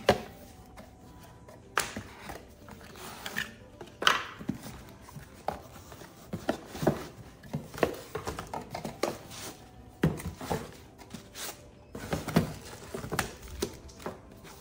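Cardboard box being unpacked by hand: flaps folded open and cardboard inserts and a wrapped item lifted out, with irregular knocks, taps and brief scrapes of cardboard against cardboard and the table.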